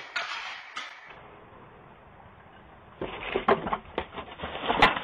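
A couple of knocks in the first second, then after a lull a run of knocks and clatter as a person falls off a ladder, with one sharp loud crack near the end.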